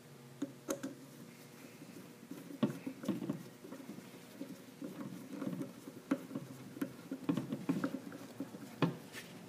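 Screwdriver driving the handle screw into a shampoo bowl faucet's clear handle: irregular small clicks and scraping of the screwdriver tip and screw, sparse at first and busier from about two and a half seconds in.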